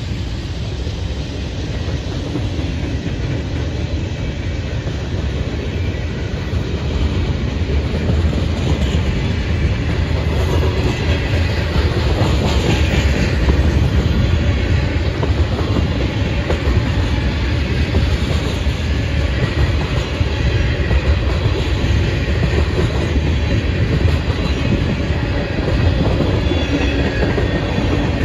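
A train rolling past close by: a loud, steady rumble of railcar wheels on the rails that keeps on without a break.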